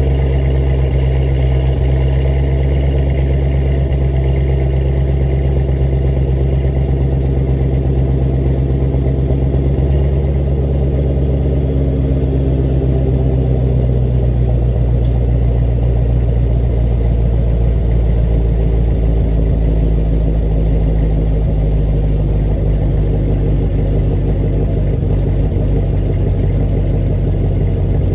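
Sixth-generation Chevrolet Camaro exhaust idling steadily with a deep, even drone. The car has a Flowmaster midpipe with the secondary cats deleted and Flowmaster 10 Series mufflers exiting through the stock NPP valved tips.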